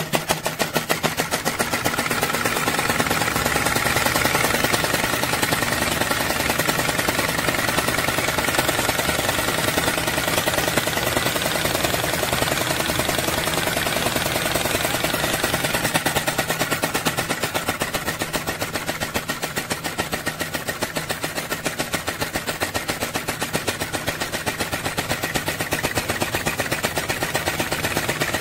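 Model flame-eater (vacuum) engine running steadily with a rapid, even clatter from each cycle of its piston and valve. It is the sound of the engine freshly adjusted and running well.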